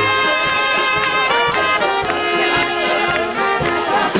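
Live brass music in a traditional folk style: horns playing held notes over a steady beat.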